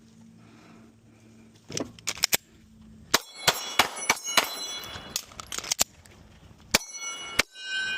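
A rapid string of gunshots, about a dozen over six seconds, with steel targets ringing after the hits.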